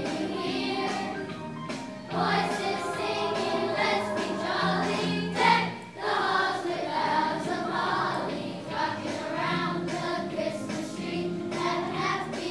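Children's choir singing together, with one brief sharp noise about halfway through.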